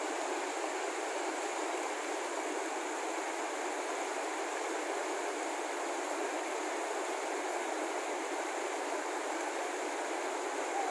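Mountain stream rushing over rocks: a steady, even water noise with no breaks.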